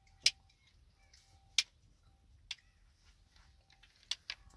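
Five sharp, unevenly spaced clicks of a knife and utensils against a plate and bowl as food is cut and prepared by hand. A faint steady tone comes and goes between them.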